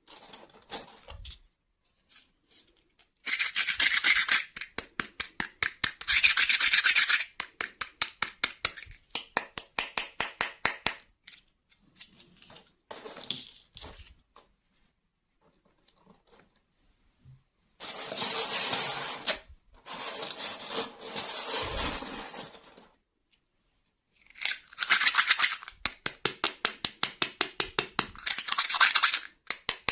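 Small plastic toy pieces and packaging being handled, with bouts of rubbing and scraping and runs of quick, evenly spaced clicks, several a second.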